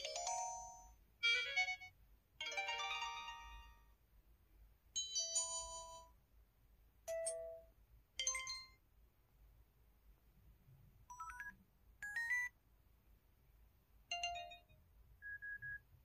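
SKY Mirach smartphone's speaker playing preview after preview of its built-in alert tones (dialog-box, call-connection and battery-low sounds): about ten short electronic chimes and little melodic jingles, one after another with short pauses between.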